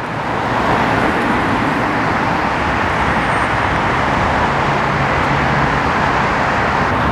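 Freeway traffic on the multi-lane roadway below, a loud, steady rush of tyre and engine noise with no break.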